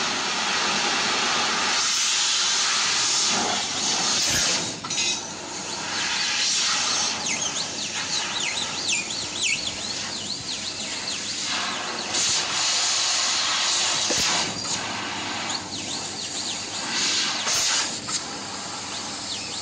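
Fiber laser cutting machine cutting sheet metal: a steady hiss of assist gas jetting from the cutting head, dipping and resuming several times between cuts. Through the middle stretch, high whines rise and fall over it as the machine drives the head along its path.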